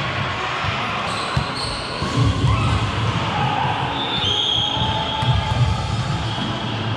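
Volleyball being played: repeated dull thuds of the ball being hit and bouncing, with several short high-pitched squeaks.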